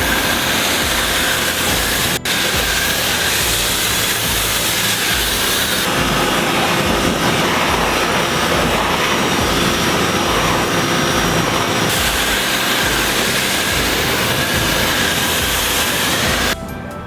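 Electric pressure washer running and spraying: a loud, steady rushing noise that changes abruptly twice. Music takes over just before the end.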